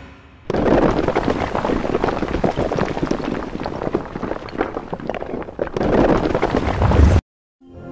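Rushing, crackling noise of a title-animation sound effect, like wind. It starts abruptly about half a second in, swells near the end and cuts off suddenly.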